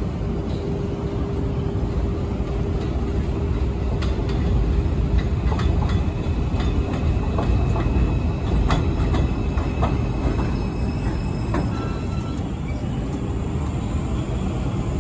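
New York City subway train running through the station with a steady low rumble of wheels on rail. Scattered sharp clicks come through the middle, and a thin high wheel squeal sounds for several seconds.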